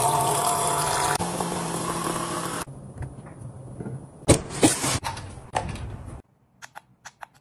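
Electric bottled-water dispenser pump running with a steady motor whine while water pours into a glass, cutting off about two and a half seconds in. A few sharp clicks and knocks follow, as the pump's top button is pressed.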